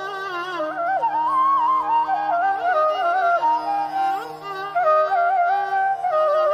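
Carnatic-style instrumental music: a melody with sliding, bending ornaments over a steady drone.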